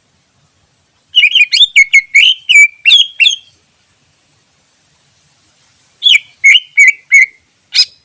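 Cucak ijo (green leafbird) singing: a burst of quick, varied chirping notes, a pause of a couple of seconds, then a second shorter phrase and one sharp note near the end.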